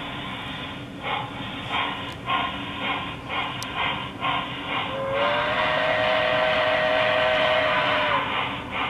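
QSI sound decoder in a Proto 2000 0-6-0 steam switcher model playing steam-locomotive chuffs, about two a second, then one long whistle blast starting about five seconds in and lasting about three seconds. The chuffs resume near the end.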